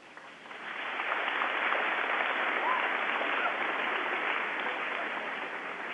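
A crowd of school students applauding, heard thin and narrow-band over a live audio link. The clapping swells in about half a second in and slowly tapers off, with a few faint whoops.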